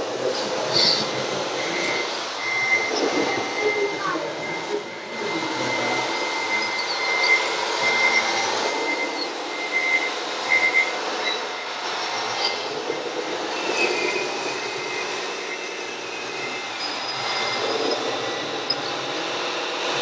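Radio-controlled scale construction machines and trucks running: a steady mix of whining electric motors and gearboxes, with a high tone that starts and stops repeatedly through the first half.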